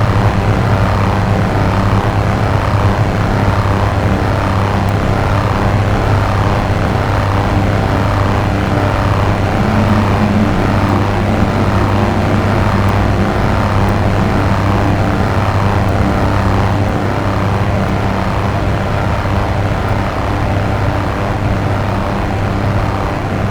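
Dark ambient drone music: a steady low synthesizer drone with a noisy, swirling sweep that repeats at an even pace above it.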